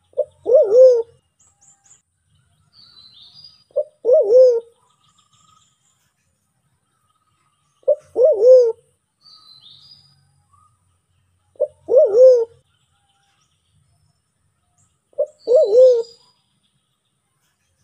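White-faced cuckoo-dove (Sulawesi black pigeon, Turacoena manadensis) calling five times at an even pace of about one call every four seconds; each call is a short note followed by a longer note that rises and falls. Faint high chirps of other birds sound between the calls.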